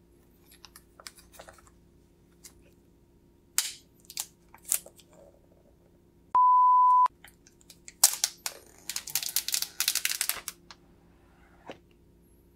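Clear plastic shrink-wrap on a phone box crinkling and rustling as it is peeled and torn off, loudest in a long crackling stretch about eight to ten seconds in. Partway through, a steady beep at one pitch sounds for under a second and cuts out all other sound.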